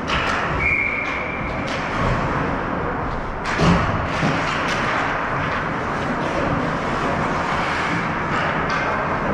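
Ice hockey rink sounds: a steady wash of noise broken by scattered clacks and knocks of sticks, pucks and skates, with a brief steady high tone near the start and a louder thump about three and a half seconds in.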